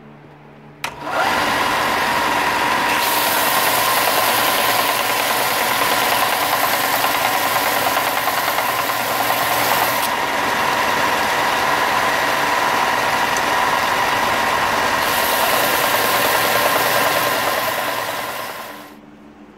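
Ryobi 4×36 belt and disc sander switched on with a click about a second in, running with a steady whine while a hardened steel knife blade is ground flat against the belt to strip off heat-treat scale. The grinding hiss shifts in brightness a few times, and the sander winds down near the end.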